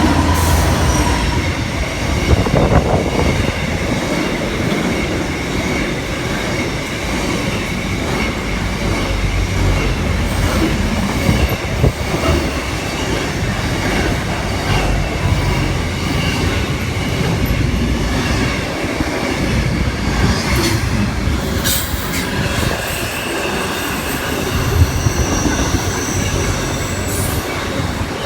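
Passenger train moving through the station, with a steady rumble of wheels on rail and thin high-pitched wheel squeal that comes and goes, strongest near the start and again near the end.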